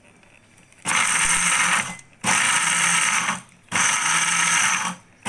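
Butterfly Desire mixer grinder run in short pulses of about a second, three times, with a fourth starting at the very end, grinding whole spices, garlic and vinegar into a coarse wet paste in its smallest jar.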